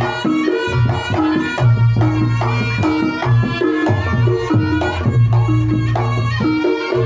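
Reog Ponorogo gamelan music: a slompret (Javanese shawm) playing a sustained, nasal melody over steady kendang drumming and deep, held low notes.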